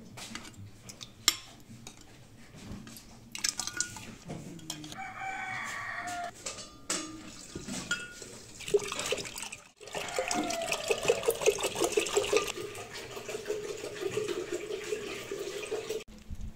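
Chickens calling, a rooster crowing among hens clucking, mostly in the second half, over scattered knocks and clinks of clay pots being handled.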